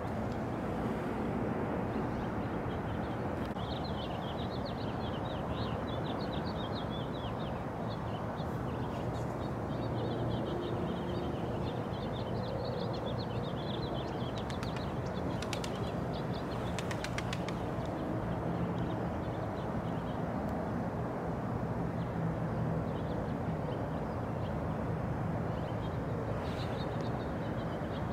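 Outdoor ambience: small birds chirping over a steady low rumble, with a quick run of clicks about halfway through.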